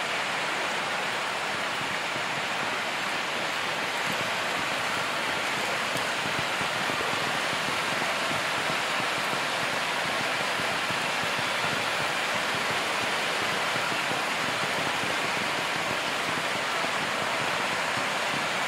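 Steady rush of fast-flowing muddy floodwater, a stream or river in spate after heavy rain.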